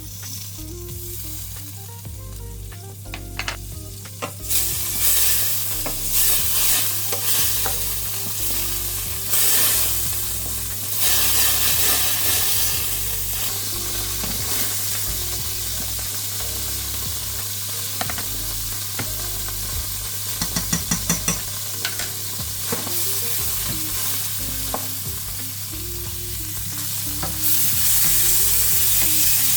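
Food sizzling and frying in a pan while being stirred, the sizzle swelling and easing as it is moved about. A quick run of about six light taps comes about two-thirds of the way through, and the sizzle is louder near the end.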